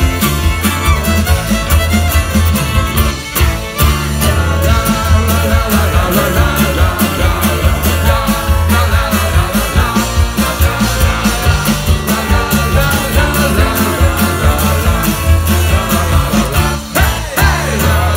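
Live folk-rock band playing fiddle, guitars and drums over a steady driving beat, heard from among the crowd in front of the stage.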